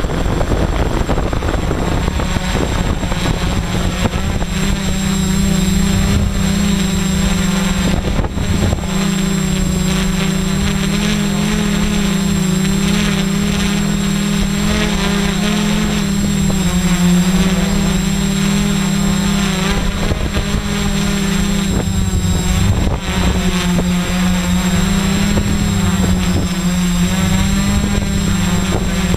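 DJI F550 Flame Wheel hexacopter's six electric motors and propellers buzzing steadily in a hover, picked up close by a camera mounted on the frame; the pitch wavers slightly throughout.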